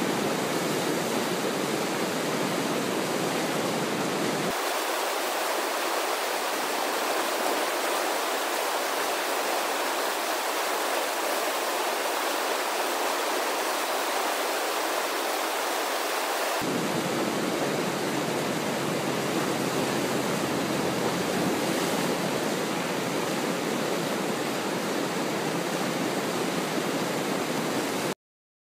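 Steady rush of whitewater from a standing river wave breaking over a drop. The deep low end drops out about four seconds in and returns around sixteen seconds, and the sound cuts off abruptly just before the end.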